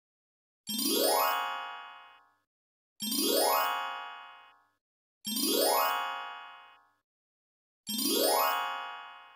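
A magical 'transformation' sound effect: a shimmering chime-like sweep that rises quickly in pitch and then rings away, played four times about two and a half seconds apart.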